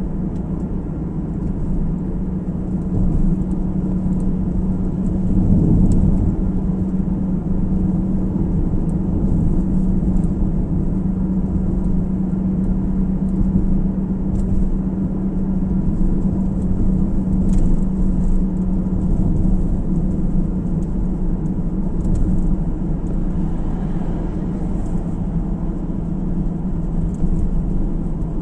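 A car driving along the road, heard as a steady low drone of tyre and engine noise with an even hum.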